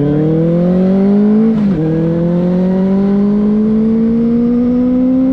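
Benelli 600i's inline-four engine accelerating, its pitch climbing, dropping sharply at a gear upshift about a second and a half in, then rising slowly again under load.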